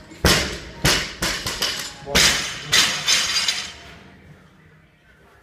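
Loaded barbell with green bumper plates dropped onto rubber gym mats: a loud slam, then several more bangs and rattles as the bar bounces and settles, dying away after about three and a half seconds.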